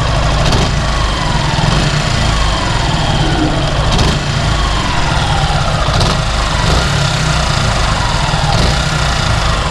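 Suzuki Gixxer SF's single-cylinder engine idling steadily while hot, its tappet clearance freshly adjusted. The owner says the extra tappet noise is now gone.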